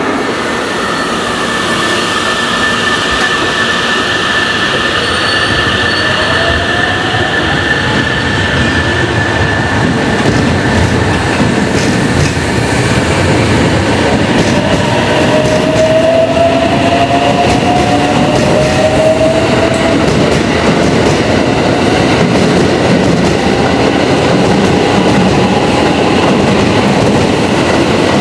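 Series 683 limited-express electric train pulling away, a steady rumble of wheels on rail with a motor whine that rises in pitch as it gathers speed.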